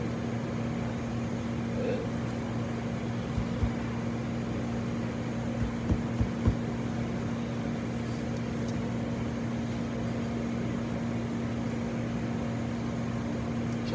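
Steady low machine hum of commercial kitchen equipment, like a ventilation fan or refrigeration unit, with a few soft low thumps about four and six seconds in.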